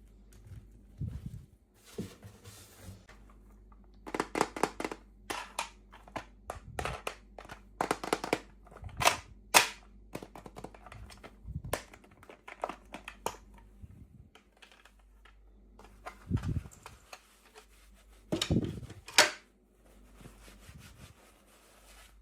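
Plastic packaging and small plastic toy pieces being handled and opened: a run of sharp clicks, snaps and crinkles, busiest from about four to ten seconds in, with a loud snap near the end.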